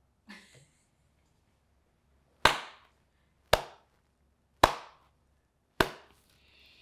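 Four slow handclaps by one person, about a second apart, the last one softer.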